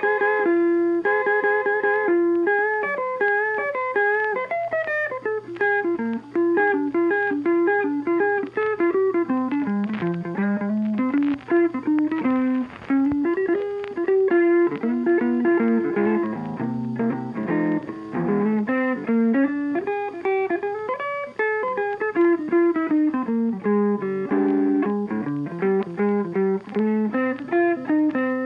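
Background music: a lively guitar tune of quick plucked notes.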